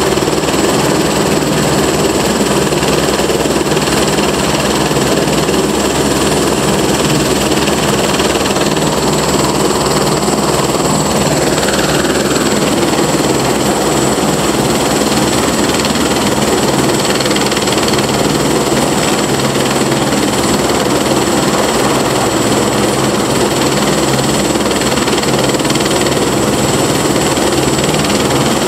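Helicopter running on deck with its rotors turning but not lifting off: a steady high turbine whine over the fast beat of the rotor blades.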